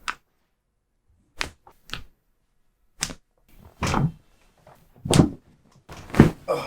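Chiropractic adjustments: a string of sharp joint cracks and thumps, about eight in all, coming at uneven intervals.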